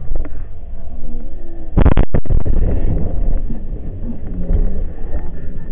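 Road noise inside a moving car, broken about two seconds in by a sudden loud crash as another car strikes it. The recording drops out for an instant during the impact, then a second or so of louder rumble follows.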